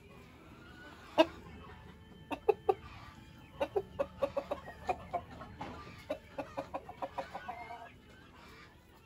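Dominant Brown (D-102) breeder chickens clucking: one sharp, loud cluck about a second in, a couple more a second later, then runs of short clucks at about four or five a second that tail off near the end.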